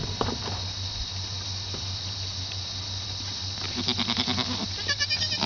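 Pygmy goats bleating twice: a lower, wavering bleat a little past halfway, then a higher, quavering one near the end.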